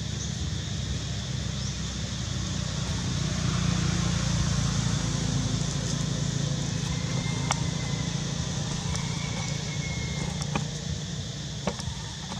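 Low, steady engine-like hum that swells in the middle and then eases off, over a steady high hiss, with a few faint clicks.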